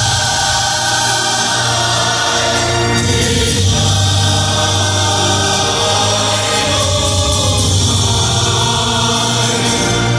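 Large choir singing with a full instrumental accompaniment, steady and loud throughout.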